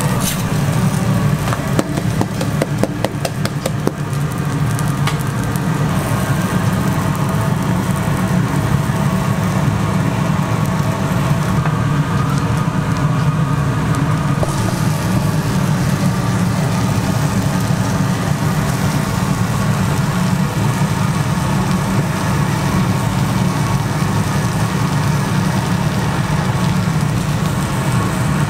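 A steady low machine hum over the sizzle of pancakes frying on a flat-top griddle, with a quick run of clicks or scrapes in the first few seconds.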